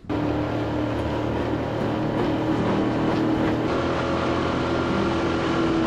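Small tiller-steered outboard motor running steadily at speed, driving a small aluminium boat across the water.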